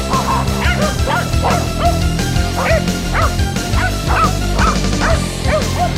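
Welsh corgis barking and yipping in short, high, repeated calls, about two a second, over background music.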